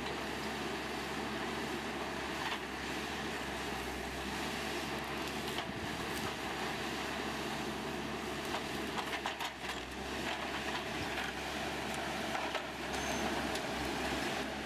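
A heavy machine's engine running steadily, with scattered short clicks and knocks.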